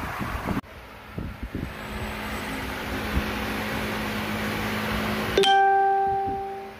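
Steady workshop background noise with a faint low hum, then, about five seconds in, a single bright bell-like ding that rings and fades away over about a second.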